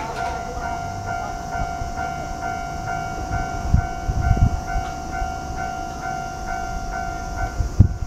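Railway level-crossing warning bell ringing in a steady rhythm of about three strikes every two seconds over a held tone. A few low thumps come around the middle and just before the end.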